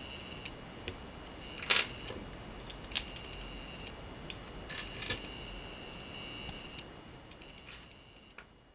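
Plastic Lego pieces being handled and snapped together, a few sharp clicks, the loudest about two seconds in. A steady high-pitched electronic whine runs underneath and breaks off now and then.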